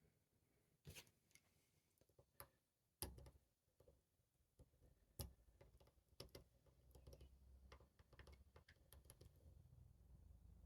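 Faint, irregular clicks and ticks of a lock pick working the pins of a Van Lock padlock. The sharpest clicks come about one, three and five seconds in, with a patter of smaller ticks after that, over a faint low rumble.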